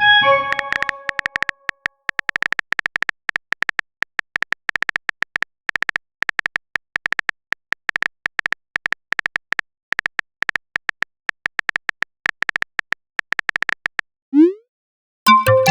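Rapid, irregular tapping clicks of a phone-keyboard typing sound effect. A short notification chime rings at the start. Near the end a quick rising swoosh of a message being sent is followed by another chime.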